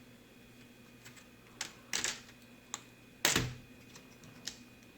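Plastic snap clips of a Toshiba Satellite L50-B laptop's screen bezel popping loose as the bezel is pried apart by hand. Several sharp clicks and snaps, the loudest a little over three seconds in.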